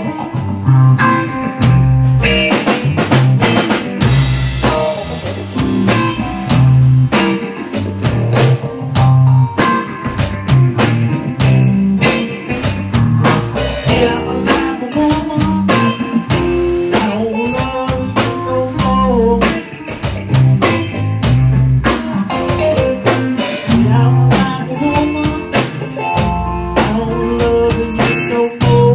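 Blues groove played on guitar and drum kit, with a steady beat and a low riff repeating every couple of seconds.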